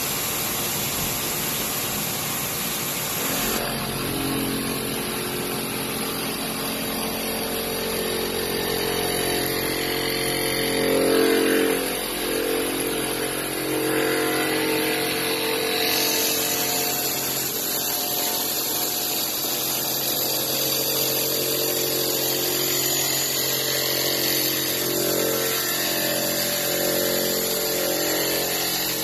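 CNC milling machine spindle running with its cutter machining the outer face of a rotary engine housing, a steady machine sound whose tone changes about three seconds in and again about halfway through.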